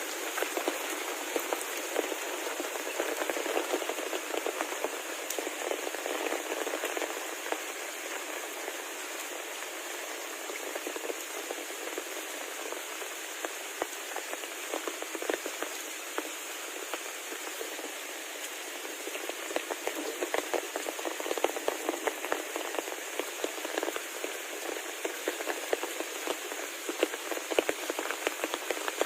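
Heavy rain falling steadily on a hard surface, a dense hiss with many close, crackling drop impacts, growing busier in the last third.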